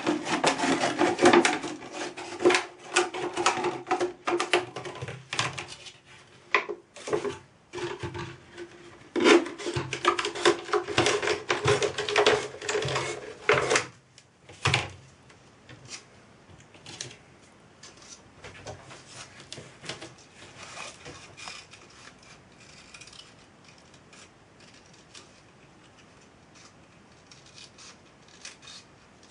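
Scissors cutting through a thin plastic drinks bottle: crackling, crinkling plastic with snips, loud for about the first fourteen seconds with a brief break in the middle. After that, only faint, sparse snips as a cut-off ring of plastic is trimmed.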